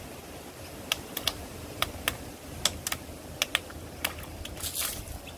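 Water balloons bursting one after another under a slowly rolling car tyre: a string of about a dozen sharp pops at uneven intervals, followed near the end by a short hiss of splashing water.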